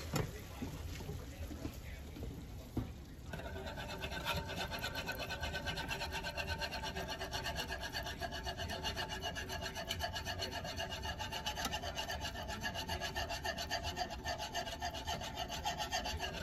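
Wire whisk scraping round the inside of a metal saucepan in rapid, steady strokes, starting about three seconds in, while whisking a white sauce of butter, flour and milk.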